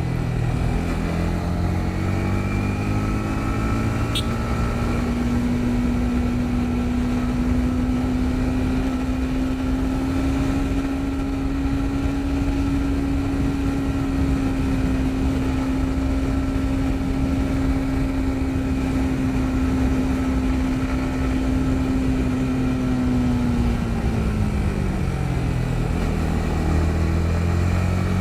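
Yamaha MT-15's single-cylinder engine running under way: it pulls up through the revs over the first few seconds, holds a steady cruise, eases off about three-quarters of the way through, then picks up again near the end.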